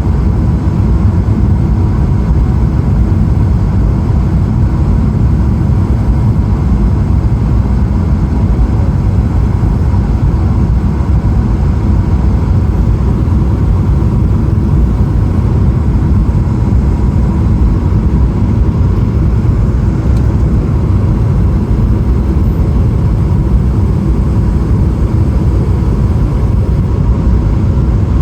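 Steady loud roar of cabin noise inside a Boeing 777-300ER in flight, mostly low rumble, with a faint steady tone running through it.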